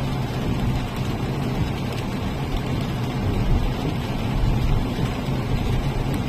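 Steady low engine rumble of a vehicle, with a constant hum and no change in speed.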